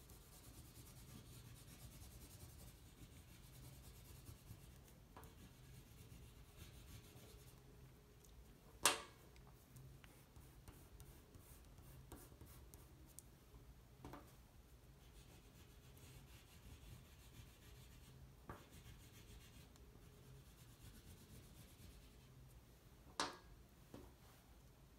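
Faint rubbing of an oil pastel on paper as the colour is worked in and blended, with a few light clicks, the loudest about nine seconds in and again near the end.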